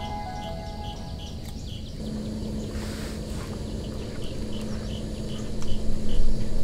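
Insects chirping in a steady rhythm of short high chirps over a low, steady rushing noise that grows louder near the end. Soft background music ends about two seconds in.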